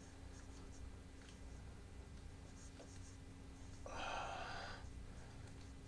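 Quiet room tone with a steady low hum. About four seconds in, a person makes one short vocal sound lasting under a second.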